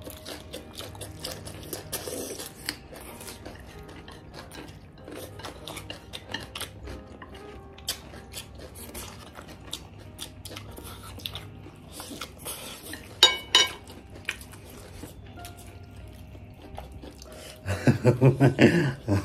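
Mukbang eating sounds: chewing and slurping of chowmein noodles and chicken leg pieces eaten by hand, with small clicks of chopsticks and fingers against plates. Near the end, a short burst of laughter.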